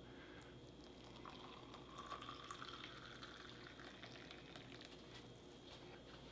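Hot water poured faintly from an electric kettle into a ceramic mug of instant 3-in-1 coffee mix.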